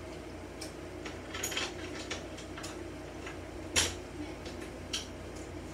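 Scattered light clicks and taps, a sharper one a little under four seconds in and another about a second later, over a steady low room hum such as a fan.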